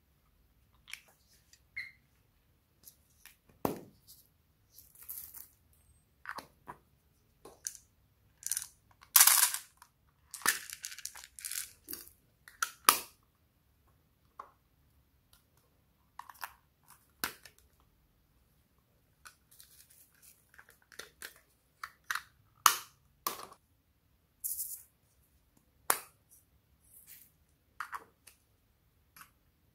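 Glossy slime worked by hand, giving irregular sticky crackles, clicks and pops with short pauses between squeezes.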